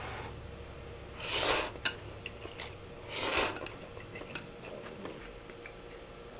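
A person slurping instant ramen noodles, two long slurps about two seconds apart, with quiet chewing in between.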